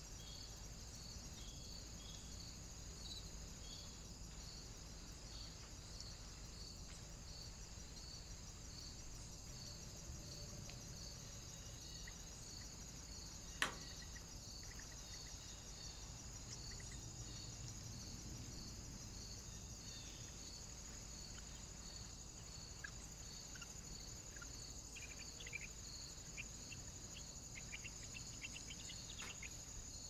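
Steady high insect chirping, as of a cricket or bush-cricket, with an even pulse about one and a half times a second. A single sharp click comes about halfway through, and a few faint high bird chirps come near the end.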